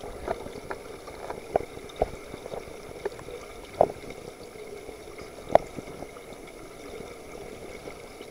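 Underwater pool ambience: a steady hiss and hum with scattered sharp clicks and pops, two of them much louder than the rest near the middle.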